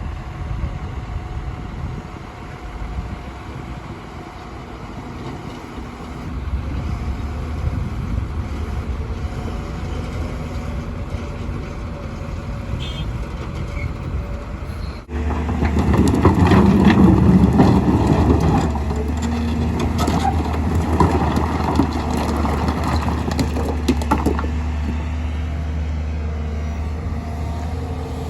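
Excavator's diesel engine running steadily under load. About halfway the sound cuts off abruptly and comes back louder, with several seconds of heavy rumbling and clattering knocks before it settles to a steady run.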